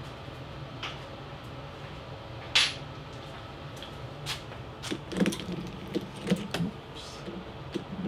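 Scattered light metallic clicks and knocks of hand tools and screws being handled at a door lock, with one sharper click about two and a half seconds in and a quick run of clicks a couple of seconds later.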